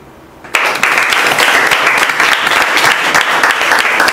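An audience applauding: many hands clapping together in a loud, dense patter that starts abruptly about half a second in and keeps on steadily.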